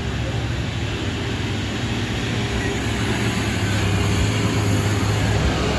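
Large intercity bus's diesel engine running under power as the bus approaches and passes close by, a steady low hum that grows gradually louder.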